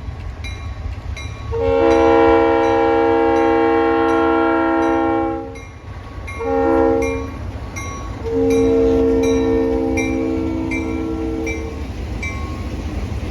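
Multi-note air horn of an ALCO diesel locomotive blowing a long blast, a short one, then another long one, the close of the grade-crossing signal. Under it run the locomotive's low rumble and a steady clicking about two times a second.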